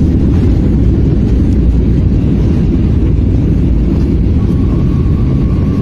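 Loud steady rumble inside a jet airliner's cabin as it rolls down the runway after touchdown, ground spoilers raised. A faint steady tone joins about four and a half seconds in.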